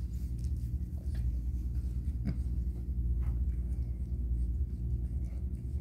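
Mother cat purring steadily and low, with a few faint wet clicks of her licking.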